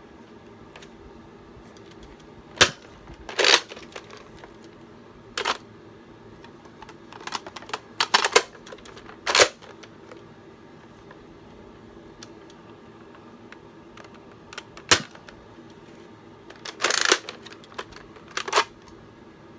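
Nerf Zombie Strike Scravenger blaster being primed and fired: sharp plastic clacks spaced irregularly, from under a second to several seconds apart, with a few quick clacks together about eight seconds in and a longer rasping clack near the end.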